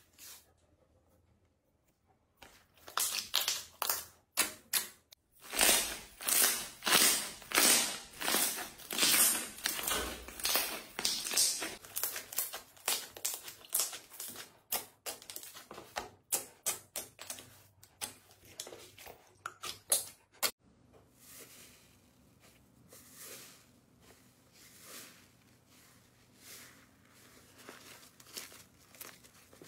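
Hands pressing and squeezing a large sheet of glossy slime, making a quick run of wet squelches, pops and crackles as air is forced out of the holes. From about 20 seconds in the sounds turn softer and sparser as thick purple slime is stretched and pulled.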